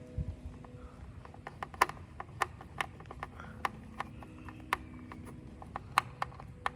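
A series of sharp, irregular clicks and taps, a few louder than the rest.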